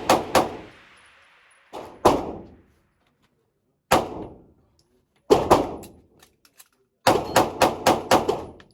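Gunshots fired at an indoor range, sharp reports ringing off the walls, in uneven groups. A pair comes about two seconds in, single shots and a pair follow, and a rapid string of about six shots comes near the end.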